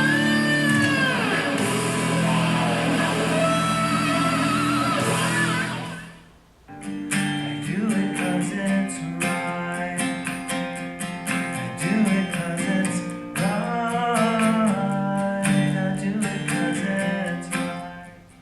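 Music played back through a Hale Dreamer Bluetooth speaker: a guitar track with singing fades out about six seconds in, and after a short gap a second track with quick plucked notes starts and runs until near the end.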